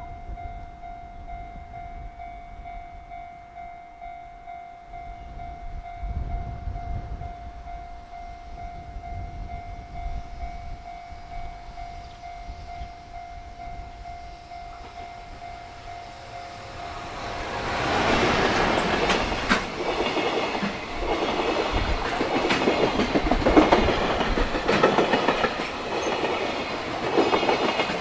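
A freight train arrives about 17 seconds in and passes close by at speed, its wheels clacking over the rail joints. Before it comes, a level-crossing warning bell rings as one steady high tone, with gusty wind rumbling on the microphone.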